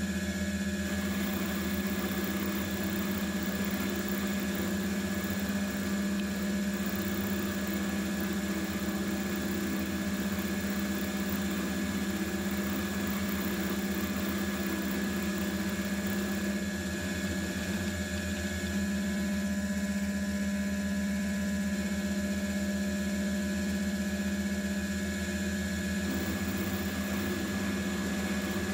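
AL960B mill drill's motor and spindle running with a steady hum as a 6 mm end mill cuts a keyway into a mower deck spindle shaft.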